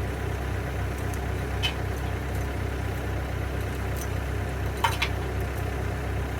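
Heavy equipment engine idling steadily with an even low throb, and a couple of faint clicks.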